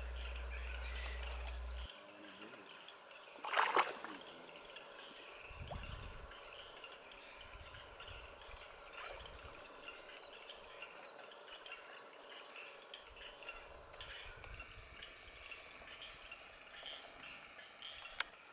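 Steady high-pitched drone of a swamp insect chorus, with a short double knock about three and a half seconds in.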